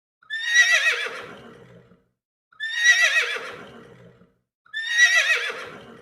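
Horse neighing three times, each whinny starting high with a quavering pitch and trailing off over about a second and a half.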